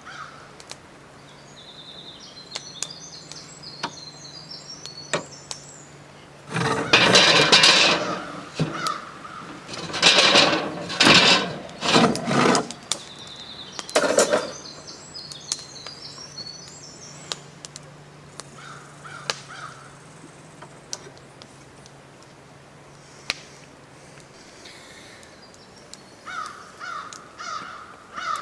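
Small birds singing in short chirping phrases over a faint steady low hum. Through the middle comes a run of loud, rough noises, each lasting one to two seconds.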